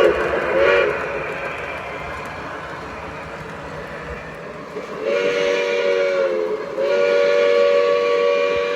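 Multi-tone train horn sounding a chord: two short blasts, then two long ones, with a steady rumble of running train noise under it.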